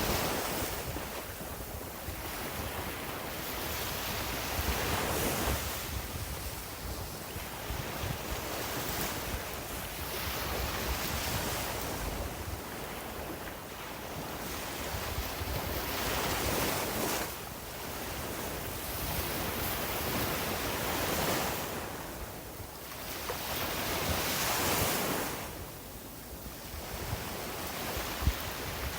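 Sea waves breaking and washing up the beach, surging and falling back every few seconds, with wind rumbling on the microphone.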